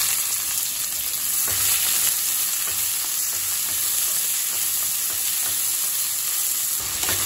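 Freshly added sliced onions sizzling in hot oil in a stainless steel kadai, a steady high hiss, as a spatula stirs them and scrapes the pan now and then.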